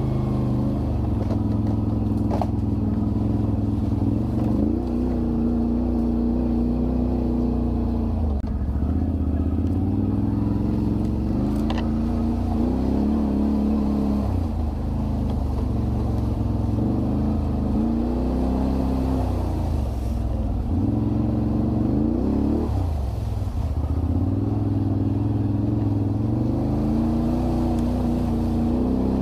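Quad bike (ATV) engine working at low speed over rough ground. The throttle is opened and closed again and again, so the engine note keeps rising and falling.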